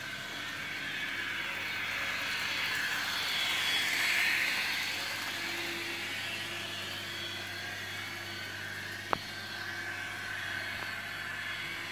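Kato VT 18.16 N-scale model train running along the track: a steady whir of motor and wheels that swells as the train passes close, then settles. A single sharp click about nine seconds in.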